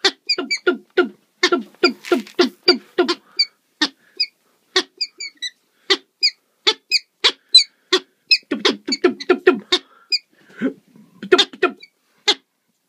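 Male peregrine falcon giving courtship display calls: a long series of short, sharp calls, about two to three a second, broken by brief pauses.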